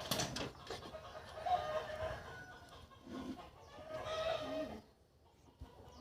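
Chickens clucking, in short pitched calls, with a sharp click right at the start.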